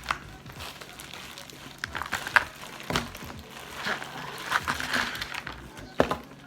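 Table-side eating and handling sounds during a crab-leg meal: crinkling of packaging, with a few sharp cracks or clicks scattered through.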